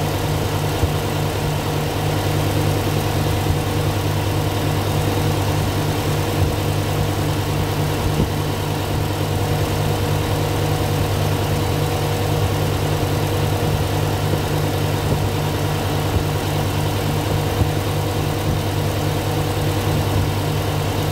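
Subaru Impreza's flat-four boxer engine idling steadily with one cylinder dead, its ignition coil getting no firing pulse from the engine computer.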